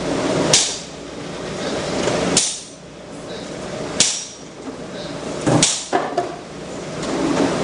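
Blacksmith's hammer striking hot steel on an anvil: single ringing blows about every one and a half to two seconds, then a quick pair with a lighter tap just after, about five and a half seconds in. A continuous rushing noise runs underneath the blows.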